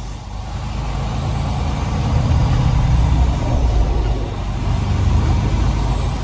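Heavy truck's diesel engine and road noise heard from inside the cab while driving, a steady low rumble that builds over the first couple of seconds as the truck gathers speed.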